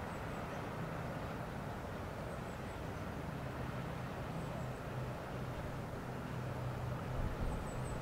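Outdoor harbour-side ambience: a steady wash of distant traffic with a low engine drone, and a few faint high chirps. A low rumble builds near the end.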